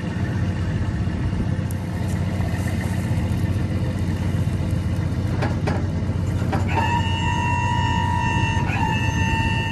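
A heavy truck's engine running steadily. About seven seconds in, a steady high horn tone starts and holds, wavering briefly once.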